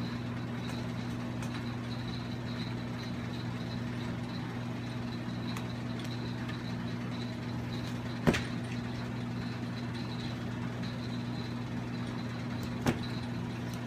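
Steady low hum with two sharp clicks: the louder one about eight seconds in and a smaller one near the end, from the clutch pedal assembly parts being handled on the bench.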